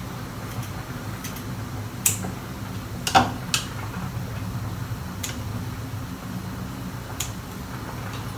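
Kitchen scissors snipping red chillies: several short, sharp clicks spaced irregularly, the loudest about three seconds in, over a steady low hum.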